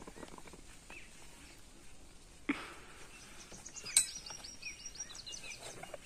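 Outdoor ambience with birds chirping, including a quick run of high chirps in the second half. There is a knock about two and a half seconds in and a sharp click about four seconds in, as a plastic knapsack sprayer is lifted and its shoulder straps are put on.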